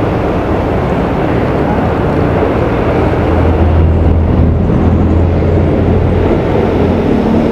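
Steady motor-vehicle engine and road noise. A low engine hum grows louder about three seconds in and eases off again near the end.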